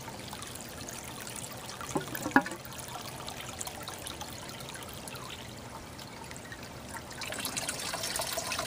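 Water trickling into a plastic drum of an aquaponics system as it fills, with a couple of short knocks about two seconds in. The trickle grows louder near the end.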